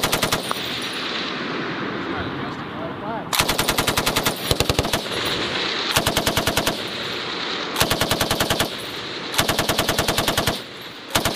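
Tripod-mounted, belt-fed machine gun firing short bursts of rapid automatic fire. There are about five bursts, each under a second to a second and a half long and about a second apart, with the echo of the shots hanging between them.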